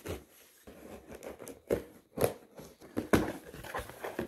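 A knife slicing through the packing tape on a cardboard shipping box, then the cardboard flaps being pulled open, heard as a few irregular scraping, tearing strokes.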